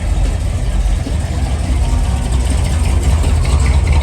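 A car engine running steadily, with a deep low rumble.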